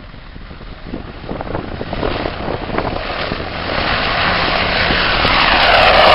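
Large helicopter lifting off and flying toward the microphone, its rotor and engine noise growing steadily louder. Near the end a whine sweeps down in pitch as it draws level.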